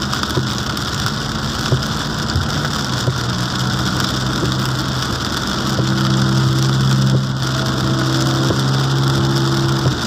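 Car driving on a rain-soaked road, heard from inside the cabin: a steady engine hum over a continuous hiss of rain and tyres on wet tarmac. The engine note grows louder and steadier about halfway through.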